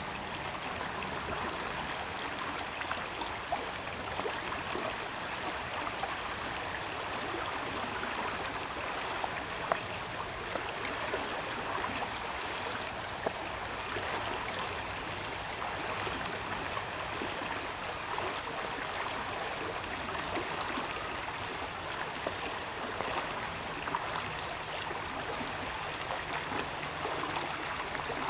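Steady rush of running water, with a thin high-pitched tone held over it and a few faint clicks.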